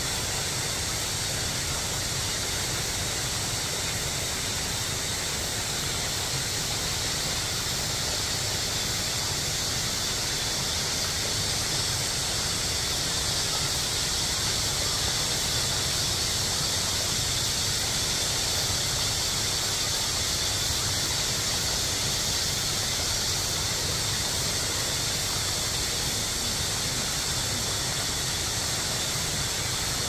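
Steady rush of a mountain stream, an even hiss strongest in the high range with a low rumble beneath.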